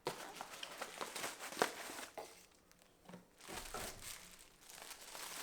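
Packaging crinkling and rustling as it is handled, in two spells with a quieter pause about halfway.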